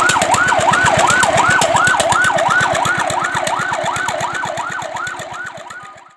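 Fire truck siren in a fast yelp, its pitch sweeping up and down about three times a second, fading out near the end.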